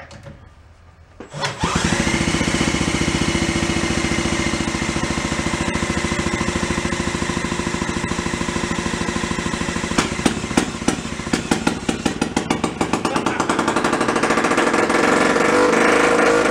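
1937 Sears Waterwitch 2.5 hp two-stroke outboard motor, spun by an electric drill on the flywheel nut, catching about a second and a half in and firing steadily. After about ten seconds it fires unevenly with sharp pops, then runs louder near the end.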